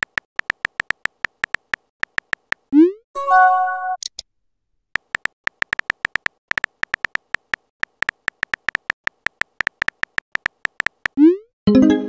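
Phone keyboard typing sound effects from a texting-story app: quick, even key clicks, a rising swoosh and a short chime as a message is sent about three seconds in, then a longer run of typing clicks and another swoosh with a chime at the very end.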